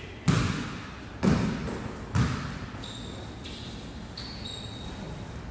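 A basketball bouncing on the court floor three times, about a second apart, echoing in the gym, then short high-pitched sneaker squeaks on the floor.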